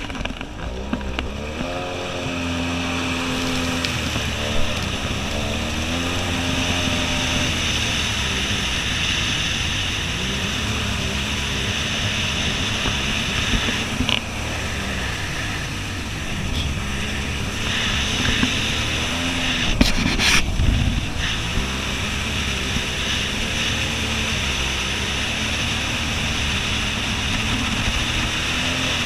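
Jet ski engine running under way, its pitch rising and falling with the throttle, over steady wind and water-spray noise on the mounted camera. A few sharp knocks come about twenty seconds in.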